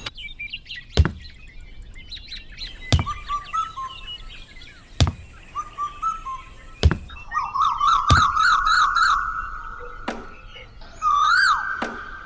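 Birds chirping and calling, with five sharp knocks about two seconds apart.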